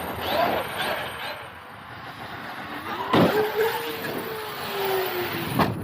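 Traxxas Xmaxx RC truck's brushless electric motor whining as it revs up and down, with a sharp knock about three seconds in. After the knock a steady whine slowly falls in pitch, and another knock comes near the end.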